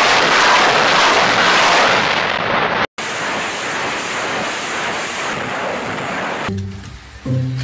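BM-21 Grad truck-mounted multiple rocket launcher firing a salvo: a continuous loud rushing noise of rockets leaving the tubes, broken by a sudden cut about three seconds in and then going on quieter until it fades away near the end.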